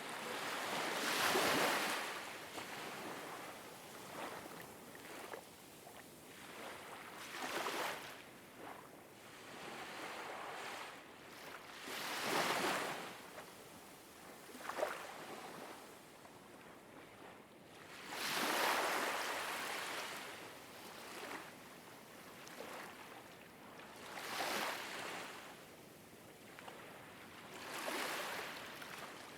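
Ocean waves washing in and drawing back in slow swells, about six times, every four to six seconds.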